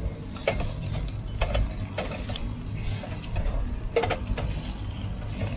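Stainless steel tongs clacking and scraping against a wire mesh grill grate as meat is turned, with a sharp metallic click every second or so.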